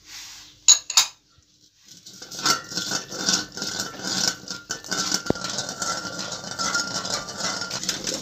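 Metal spoon stirring yogurt in a steel pot without a break, a quick steady run of scraping and clinking against the pot's sides, kept up so the curd won't split as it heats. Two sharp clinks come about a second in, before the stirring starts.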